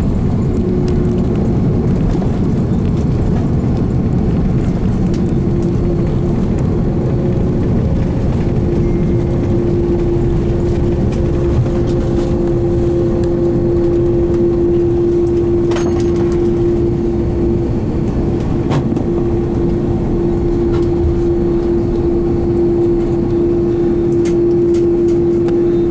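Steady low rumble inside the cabin of an Airbus A330-300 on its landing run, with a steady droning hum throughout and a couple of faint clicks about two-thirds of the way through.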